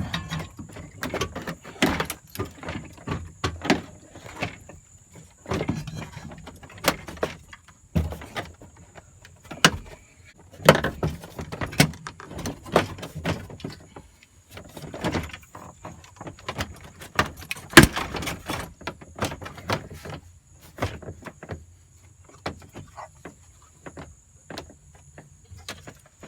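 Irregular knocks, clicks and scrapes as a dashboard is manhandled and seated into a 1989 Fox-body Mustang's interior. The loudest is a single sharp knock about two-thirds of the way through.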